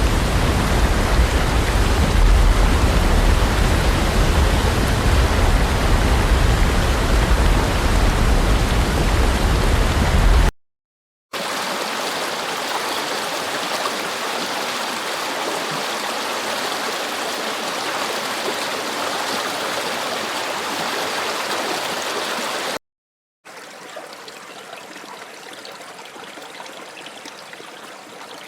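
Three separate recordings of running water, split by short silences. First a loud rush with a deep rumble, then a steadier, thinner stream sound, and from about 23 seconds in a quieter flow, like a creek.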